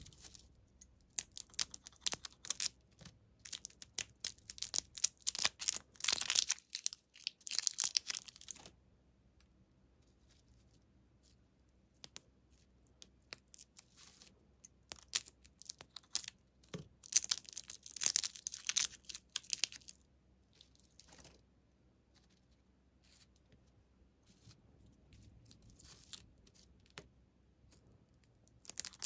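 Plastic lollipop wrappers being crinkled and torn off by hand, two lollipops in turn. There are two bouts of crackly rustling, each several seconds long, with quiet pauses between them.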